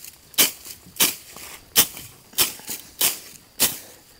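Sickle swung through tall grass in steady strokes, six sharp swishing cuts, about one and a half a second.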